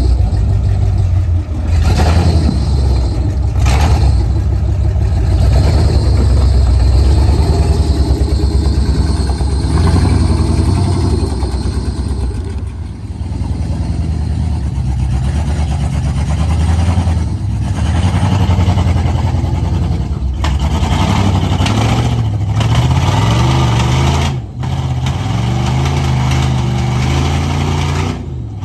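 Jeep engine running continuously, its revs rising and falling as it works over off-road terrain, with a few brief drops in sound.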